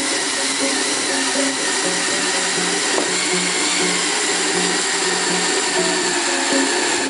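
Cordless drill running steadily, driving a 1-7/8-inch hole saw through a plastic door trim panel, with a steady motor whine. Background music with a melody of short low notes plays over it.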